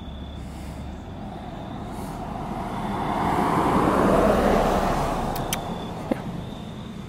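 A vehicle driving past: its noise swells to a peak about halfway through and then fades away. Two short sharp clicks come near the end.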